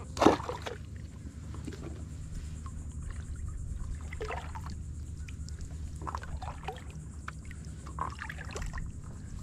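Paddle strokes from a SUP-yak: the blade dipping into calm water, with splashes and drips off the paddle at each stroke. A short, loud sound comes just after the start.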